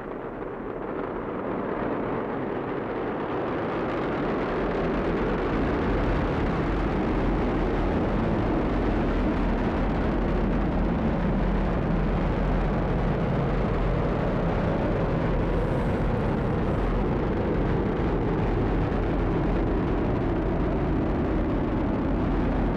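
Falcon 9 rocket's nine Merlin first-stage engines firing during ascent: a steady rumble that grows louder over the first few seconds, then holds level.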